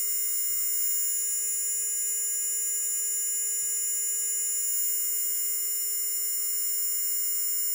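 AUTOOL spark plug tester firing a continuous stream of sparks across spark plug gaps, making a steady, even buzz at one constant pitch. The steady spark shows the plugs are firing.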